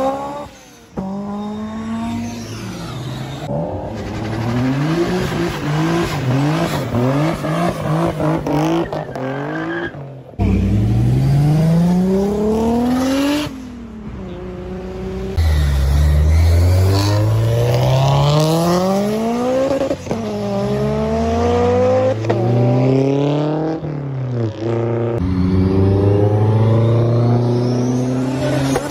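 Several short clips of tuned sports-car engines accelerating hard in a row. In each run the pitch climbs steadily and then drops back at a gear change or lift-off. The sound changes abruptly at each cut between clips.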